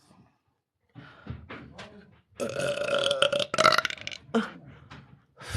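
A woman belching: one long drawn-out burp starting about two and a half seconds in and lasting nearly two seconds. Shorter sounds come before and after it, and another loud burp starts right at the end.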